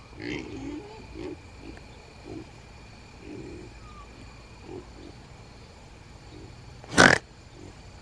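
Kunekune pigs grunting softly at irregular intervals, with a loud, short, harsh burst about seven seconds in.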